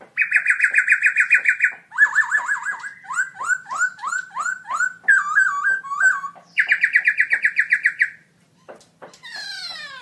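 Black-throated laughingthrush singing loudly. The song opens with a fast trill of repeated whistled notes, then runs into a series of rising, slurred whistles that slow down, then gives a second fast trill, and ends with a softer falling phrase near the end.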